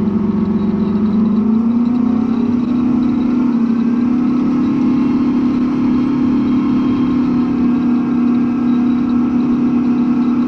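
Large tractor's diesel engine running under load, rising in pitch over the first couple of seconds and then holding a steady high speed.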